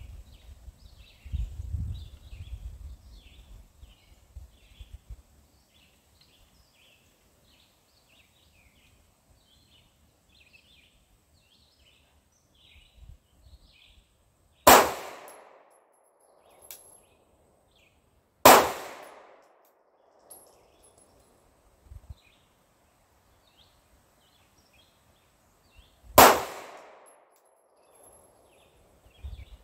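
Sig Sauer P226 pistol fired three times in slow, deliberate one-handed fire, the shots about four and then about eight seconds apart, each ringing out after the report.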